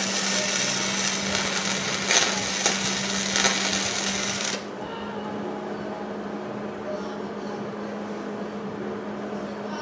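Hobart Handler 140 wire-feed welder's arc crackling steadily while laying a weld bead to repair a broken weld. It stops abruptly about four and a half seconds in, leaving a steady low hum.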